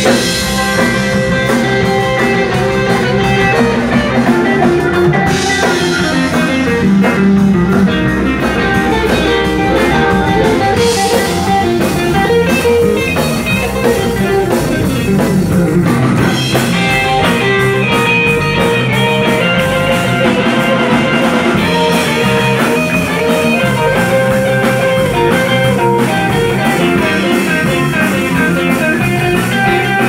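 Live rock band playing an instrumental surf rock number: electric guitars picking a fast melody over bass and a drum kit with crashing cymbals, loud and steady.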